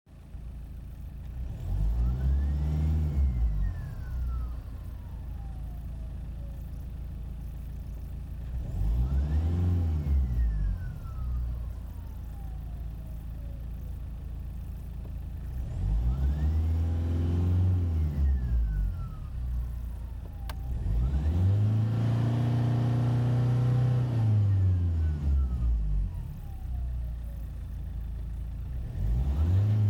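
Kia Ceed 1.6 CRDi four-cylinder turbodiesel revved five times, the fourth rev held for a few seconds. A high whistle rises with each rev and then slowly falls in pitch as the engine drops back to idle. Its source is unclear: the owner suspects the turbocharger, the alternator or the exhaust.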